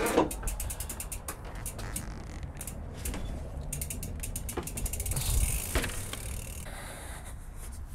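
Rapid, even clicking of an e-mountain bike's rear freehub ratchet as the bike is wheeled along, in a couple of quick runs, with a knock and some rattling as the bike is lifted down from the van floor.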